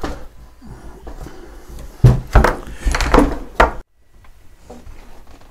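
A wooden model ship hull being handled and shifted on its cradle on a workbench: a knock, then a loud cluster of wooden knocks and scraping thumps that cuts off abruptly, followed by faint light ticks.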